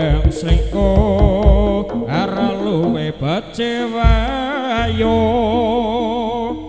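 Live East Javanese jaranan ensemble music: kendang drum strokes under a wavering melody. About halfway through it settles into a long held, quavering melody over a steady low note.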